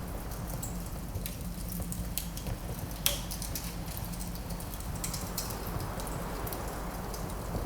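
Fireplace fire crackling, with irregular sharp pops, the loudest about three seconds in, over a steady low rumble.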